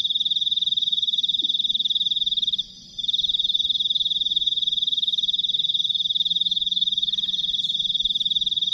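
A calling night animal's continuous, high-pitched rapid trill, with one short break about two and a half seconds in.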